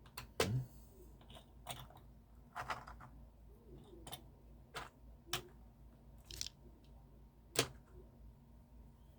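Irregular handling clicks and knocks, about nine in all, as small die-cast toy cars and their plastic packaging are picked up, turned over and set down; the sharpest knocks come near the start and late on.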